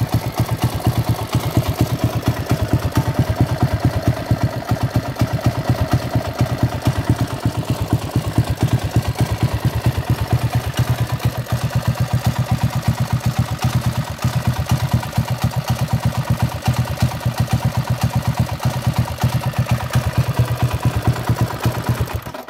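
Single-cylinder 212cc Predator engine on a mini bike, governor removed, high-compression piston, exhaust through a silencer, idling steadily with even firing pulses, then shut off near the end. The engine is freshly cold-started and is one the owner calls cold-blooded.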